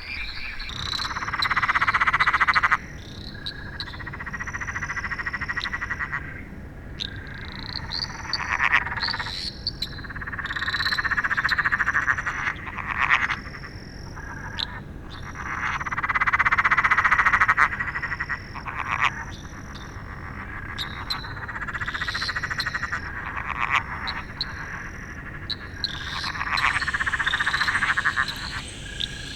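A chorus of Australian frogs calling. Long trilled calls of one to three seconds repeat every few seconds, overlapped by many short, higher-pitched notes from other frogs.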